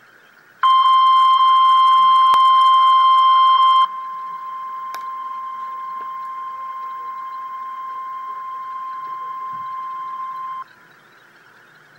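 Emergency Alert System single-tone warning alarm, a steady high beep near 1 kHz. It starts loud about half a second in, drops sharply in volume about three seconds later, and holds steady until about a second before the end, over a faint background hiss.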